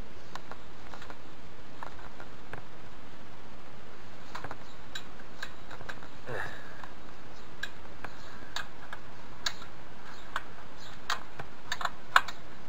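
Scattered light metallic clicks and taps of an adjustable wrench and a spanner on a moped's rear axle nut as they are fitted and worked, with one sharper click near the end.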